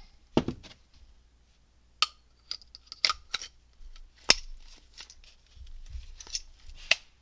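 Metal parts of a starter motor clicking and knocking as the housing and end plate are handled and turned to line up the screw holes, with one sharp click about four seconds in the loudest.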